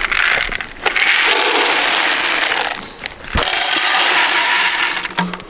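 Dry kibble poured from a plastic scoop into a black plastic feeder, a steady rattling rush of pellets in two long pours with a short break about three seconds in.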